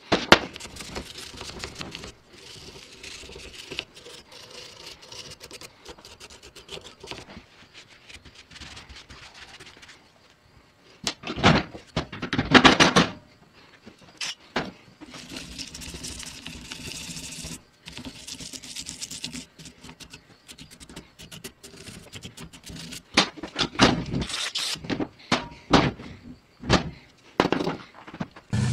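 Aerosol spray can hissing in a few bursts over a cast-iron lever-type shock absorber held in a bench vise, with clicks and metal clanks of the part being handled in between, and a loud clatter about twelve seconds in.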